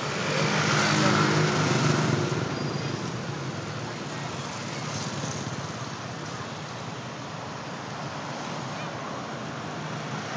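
Street traffic of small motor scooters and motorbike-drawn tuk-tuks with a few cars. One passes close with its engine audible in the first couple of seconds, then a steady traffic hum.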